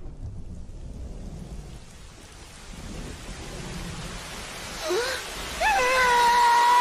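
Heavy rain building up to a steady downpour. About five seconds in, a young male voice breaks into an anguished cry that rises and is held as a long wail of grief.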